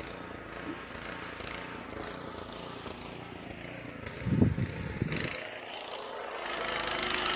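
Snow blower engine running steadily, growing louder near the end, with a brief low rumble about four seconds in.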